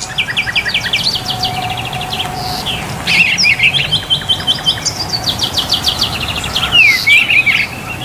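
Songbird chirping: fast runs of repeated high chirps and trills with some down-slurred whistled notes, continuous throughout.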